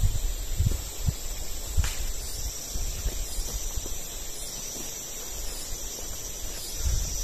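Insects droning steadily, a higher steady tone joining in about two seconds in, over footsteps and low thuds as a hiker walks across dry, burnt ground.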